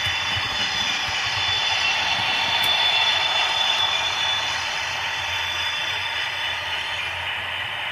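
Model-railway Class 60 diesel locomotive's DCC sound decoder (Howes sound) playing a steady engine idle through its small onboard speaker, mixed with the running and clatter of a passing model multiple unit on the track, which grows a little louder two to three seconds in.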